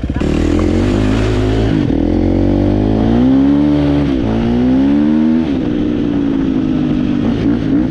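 Dirt bike engine revving hard under throttle, its pitch climbing and dropping twice, then running lower with a few short blips of throttle near the end. A loud hiss sits over the engine for the first two seconds.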